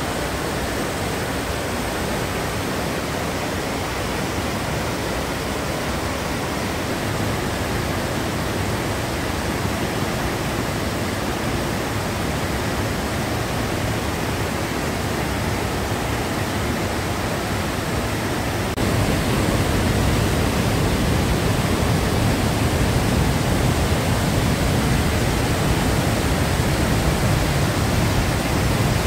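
Fast white-water mountain river rushing over rocks in a narrow rock gorge, a steady, even roar. About two-thirds through it suddenly becomes louder and deeper.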